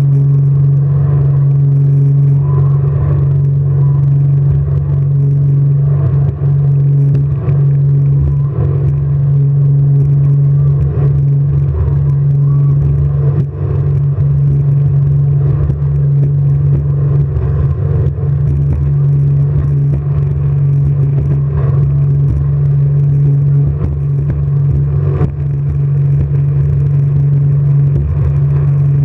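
Jet boat engine running steadily under way, a loud continuous low drone.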